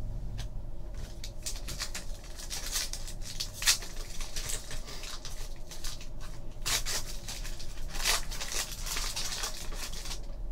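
A foil trading-card pack being torn open and crinkled, then the cards slid out and handled: a run of sharp crackles and rustles, the loudest a little under four seconds in.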